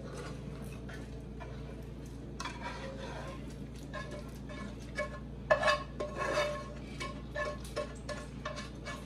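Cooking utensils scraping and clinking against a nonstick skillet and pot as diced cooked chicken is scraped into a creamy sauce, with the loudest clatter about halfway through. A low steady hum runs underneath.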